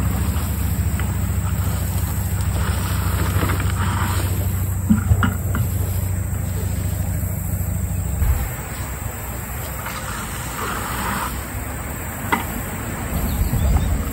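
Wood-chip mulch poured from a plastic bucket, rustling as it spills out in short pours, with a few light knocks. Under it runs a steady low rumble that drops away about eight seconds in.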